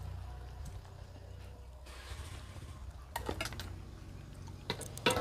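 Cutlery and plates clinking now and then as people eat, a few light scattered clicks over a low steady hum.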